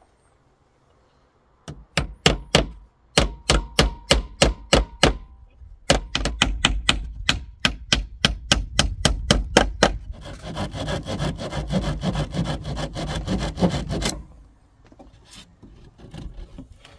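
A hammer driving nails into the wooden slats and battens of a small chicken coop's sloping roof: runs of sharp, quick strikes, several a second, starting about two seconds in. Around ten seconds in the strikes give way to a few seconds of continuous rasping wood noise that cuts off suddenly.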